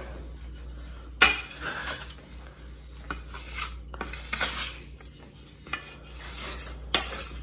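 Metal bench scraper scraping flour across a stone countertop in a series of short scrapes, with a sharp knock about a second in and another near the end.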